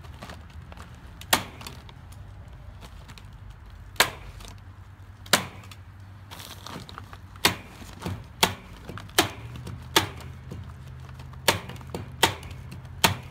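Staple gun driving quarter-inch T50 staples through a feed bag into a wooden frame: about eleven sharp snaps at uneven intervals, closer together in the second half.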